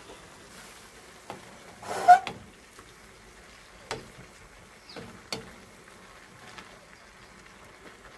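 Wooden spatula knocking and scraping against a wok as noodles and vegetables are tossed: scattered short knocks, the loudest a brief clatter about two seconds in.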